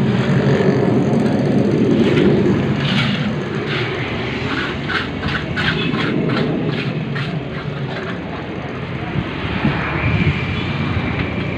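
A motor running steadily with a low hum, with a quick run of sharp clicks and taps in the middle.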